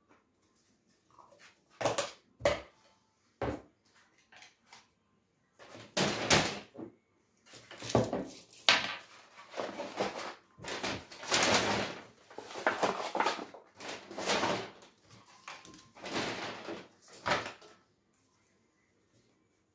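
Cardboard takeaway boxes and a paper bag being folded and rustled while a table is cleared, with a few sharp knocks of dishes near the start.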